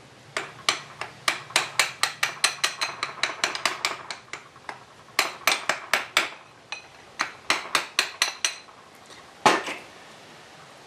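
A hammer taps a copper drift held against a gear on a shaft inside a lathe feed gearbox, driving the gear off the shaft. The metallic taps come in quick runs of about four or five a second with short pauses, and one harder blow near the end.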